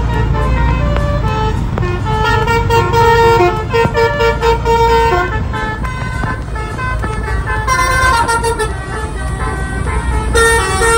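A bus's Basuri multi-tone 'telolet' horn playing a melody of short held notes, over the low running of the bus engine and tyre hiss on the wet road.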